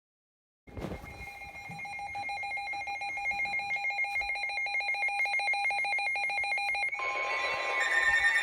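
Weather alert radio sounding its alarm: a fast-pulsing electronic trill that starts abruptly and grows louder. About seven seconds in it changes, and a steady single-pitch weather-radio warning tone joins, marking the start of a new warning.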